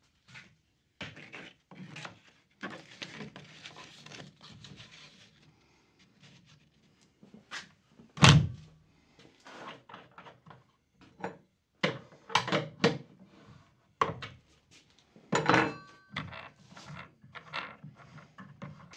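Irregular knocks, clicks and clunks of handling as a new abrasive belt is fitted onto a homemade 2x72 belt grinder and its wheel and tension assemblies are adjusted, with one loud thunk about eight seconds in. The grinder's motor is not running.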